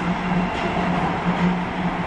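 Running noise inside an Osaka Metro 31 series subway car at speed: a steady rumble of wheels on rail, with a low hum that swells and fades.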